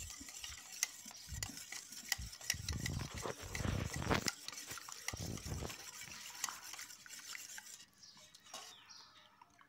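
Small wire whisk beating chilled milk cream and cold water in a glass bowl: a fast run of clinks and scrapes of the wires against the glass as the cream is churned into butter. The whisking fades out near the end.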